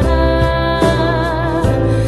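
Background song: a singer holds a note with vibrato over sustained accompaniment.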